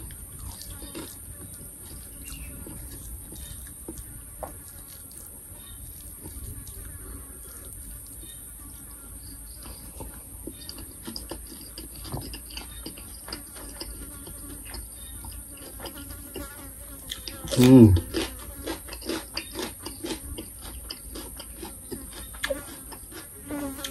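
Close mouth sounds of eating: soft chewing and many small wet clicks as raw cucumber and mackerel chili paste are chewed, over a steady high-pitched hiss. A short voiced hum comes about 18 seconds in.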